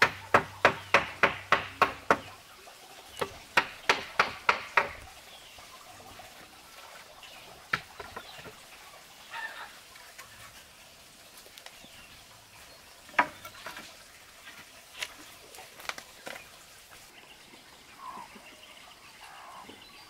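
Two quick runs of sharp knocks, about four to five a second, the first ending about two seconds in and the second about five seconds in, followed by a few single knocks spaced several seconds apart.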